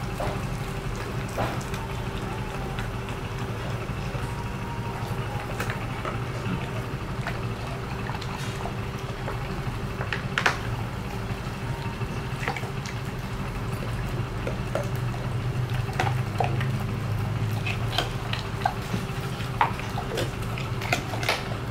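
A pit bull gnawing and chewing on a cow's foot, with irregular sharp clicks and crunches of teeth working on the hide and bone. A steady low hum runs underneath.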